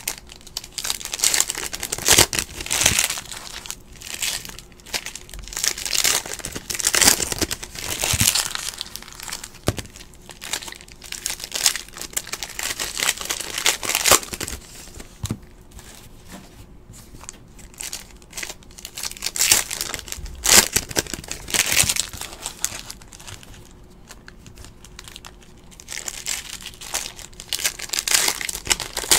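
Foil-and-plastic wrapper of a Panini NBA Hoops basketball card pack crinkling in irregular bursts with short pauses as fingers work it and tear it open.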